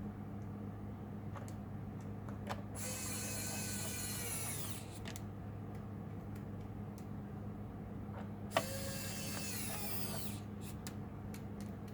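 Small electric screwdriver turning laptop case screws: two whirring runs of about two seconds each, the pitch dropping as each one ends. Light clicks and taps of handling between them.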